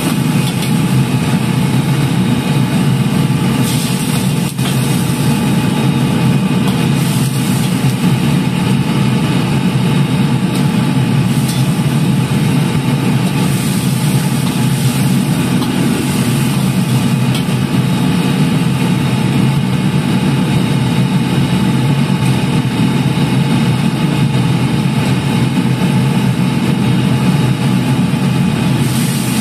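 Steady loud roar of a commercial gas wok range's burner and kitchen extractor fan, with the ladle scraping and knocking against the steel wok now and then as the sauce simmers.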